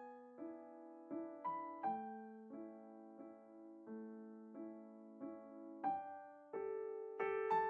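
Background piano music: slow, gentle single notes and chords, growing fuller near the end.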